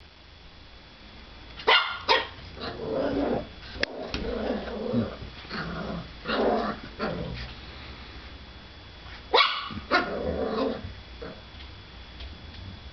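Puppy barking and growling at its own reflection in a mirror: two pairs of sharp barks, about two seconds in and again about nine seconds in, with low growling between them.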